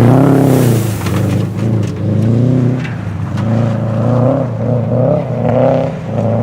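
Car engine revving up and down over and over as the car is driven sideways through mud on street tyres. There is a brief hiss near the start.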